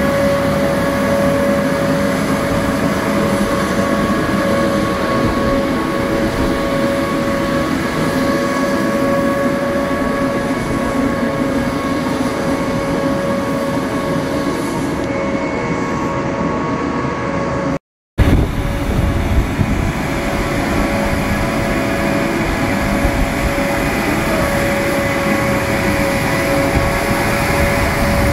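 Mercedes-Benz Axor rail-cleaning truck running along tram rails on its rail guide wheels: a steady, loud mechanical drone from its engine and cleaning equipment, with a steady high whine over it. The sound cuts out once, briefly, about two-thirds of the way through.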